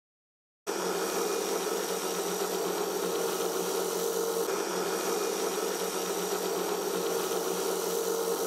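Benchtop drill press motor running steadily as the bit bores lengthwise into the end of a long wooden rod, a constant hum that starts abruptly just under a second in.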